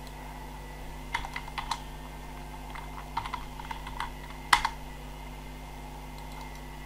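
Typing on a computer keyboard: two short runs of keystrokes, then one louder key click about four and a half seconds in, over a steady low electrical hum.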